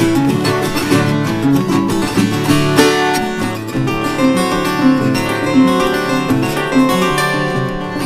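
Two violas caipiras, Brazilian ten-string folk guitars, played together in an instrumental duet: a run of picked melody notes over strummed accompaniment.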